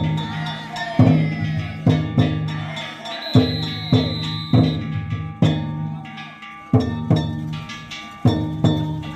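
Danjiri festival drums and bells: a big taiko drum and metal bells struck in a steady beat, each stroke ringing on. About halfway through, a high tone is held for about a second.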